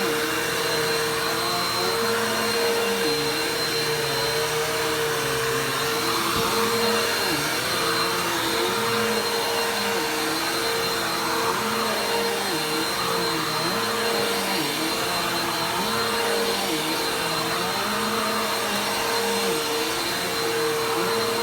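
Vacuum cleaner running continuously: a steady motor whine over the rush of air, with lower notes that rise and fall every second or so.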